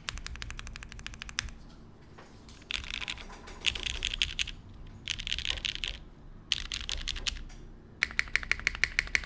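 Typing on a Kyohaku gasket-mount mechanical keyboard with lubed Cherry MX Vintage Black linear switches, an aluminium plate and GMK keycaps. It comes in bursts of keystrokes with short pauses, and ends in an even run of louder strokes, about five a second.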